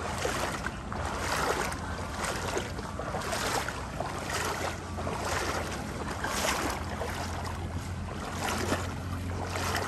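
Rushing, splashing water and wind noise with irregular surges, over a steady low hum.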